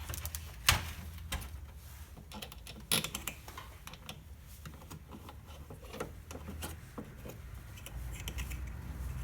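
Irregular light clicks and knocks of metal parts and tools being handled on a washing machine transmission, with sharper knocks about a second in and about three seconds in, over a low steady hum.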